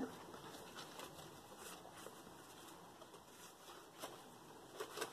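Faint rustling and soft taps of paper and card as a handmade concertina file folder is handled and opened, with a few slightly louder touches near the end.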